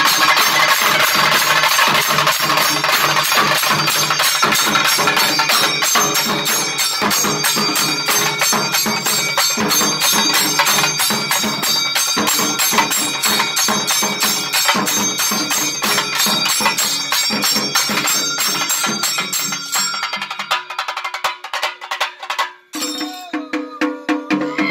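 An ensemble of rope-laced cylindrical stick drums (chenda) beaten fast and densely, with ringing tones running through the drumming. Near the end the playing thins out, stops for a moment, then starts again.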